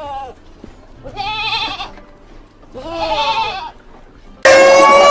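Two bleats, each about a second long with a wavering pitch, from a goat or sheep-like farm animal. Near the end a louder call at a steady pitch cuts in suddenly: a rooster starting to crow.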